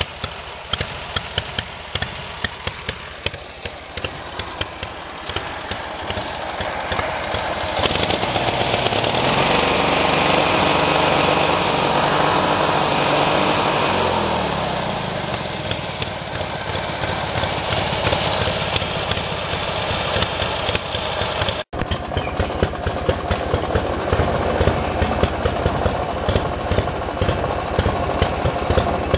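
Briggs & Stratton lawn-mower engine on a homemade go-kart, running with a rapid popping exhaust note from its short pipes. About eight seconds in it revs up, holds high for several seconds, then drops back toward idle; after a sudden break about two-thirds through, it runs on with sharp frequent pops.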